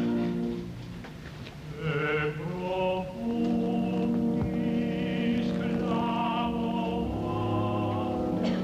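Stage-musical music: an orchestra playing sustained chords, with a singer using strong vibrato coming in about two seconds in and holding long notes over it.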